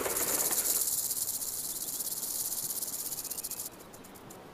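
Rattlesnake rattling its tail: a rapid, high, dry buzz that cuts off suddenly near the end.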